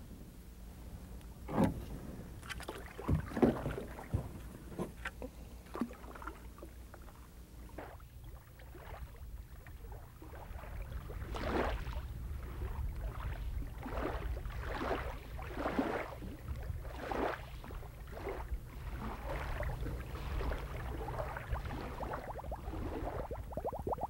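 Stream water being disturbed: a few sharp plops in the first several seconds, then a run of irregular small splashes and gurgles, over a low steady rumble.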